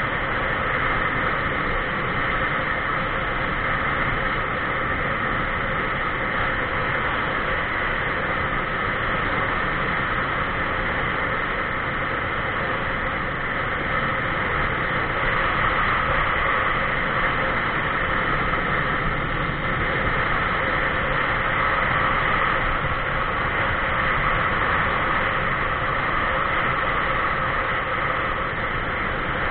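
Steady rushing wind and road noise on a camera riding along a paved highway, slightly louder in the second half.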